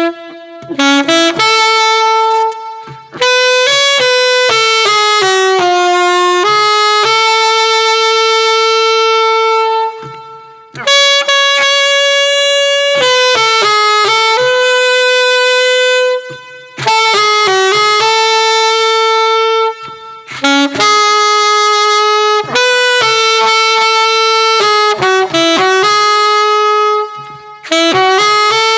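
Yamaha YAS-23 alto saxophone played solo: a melody of held notes and quicker runs in several phrases, with short pauses for breath between them.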